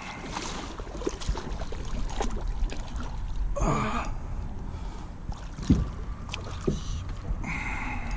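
Kayak knocking and water stirring as a big catfish is wrestled alongside to be grabbed by hand, with scattered short knocks over a steady low rumble. A brief voice or gasp comes about halfway through and another near the end.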